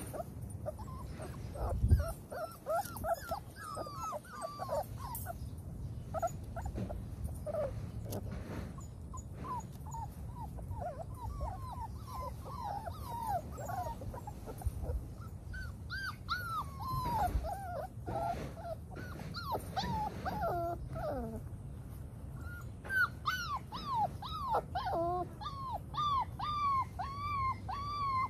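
Six-week-old XL pit bull puppies whimpering and yipping: a string of short, high cries that fall in pitch, several pups at once, thickest in the second half. A single thump about two seconds in, over a low steady hum.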